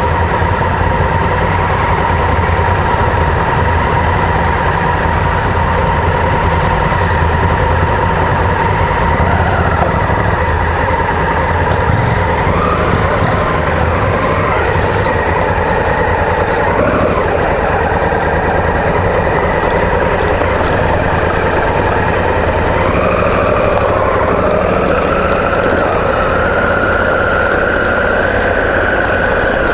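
Honda Africa Twin CRF1000's parallel-twin engine heard from on board. It runs at a steady idle, then from about twelve seconds in its pitch rises and falls as the bike pulls away over a dirt track, with a longer rising pull near the end.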